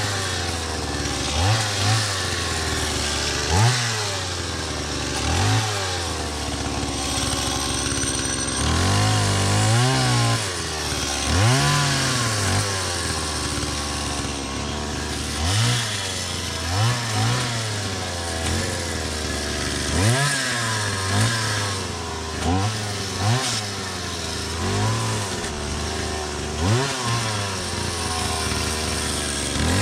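Gas chainsaw engine idling and being revved in short throttle blips, the pitch jumping up and dropping back about twenty times, with a brief steadier run near the middle.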